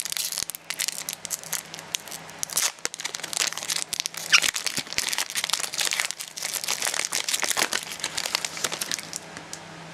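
Foil Pokémon card booster pack being torn open and handled: irregular crinkling and crackling of the wrapper that thins out near the end.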